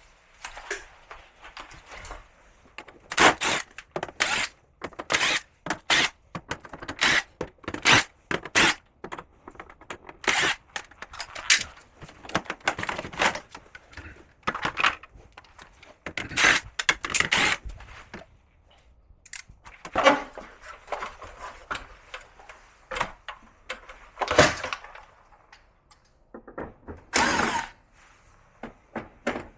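Irregular knocks, clicks and clatter of plastic panels, parts and hand tools as a Samsung Gallery air conditioner is taken apart. There are a few longer rasping stretches, the longest near the end.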